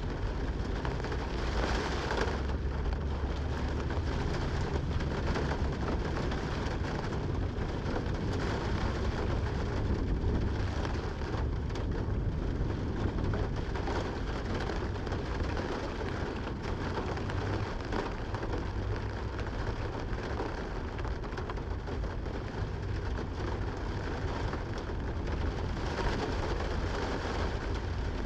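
Rain falling steadily, with a deep low rumble underneath.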